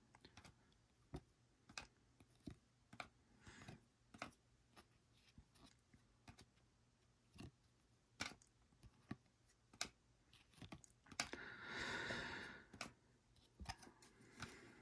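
Chromium trading cards being flipped through by hand: faint, irregular clicks and snaps as each card is slid off the top of the stack, with a longer, louder rustle about eleven seconds in.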